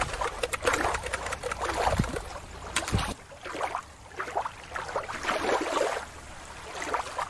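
Shallow water lapping and splashing at a rocky shore, with many small crackles and splashes. About three seconds in it cuts abruptly to quieter, softer water noise with gentle bubbling.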